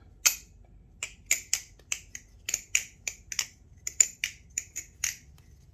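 Aluminium BRS Barebones clone balisong being flipped: about twenty sharp metallic clicks and clacks at uneven spacing as the handles swing round and knock against the blade and pins. This is the clunky flipping sound of the knife.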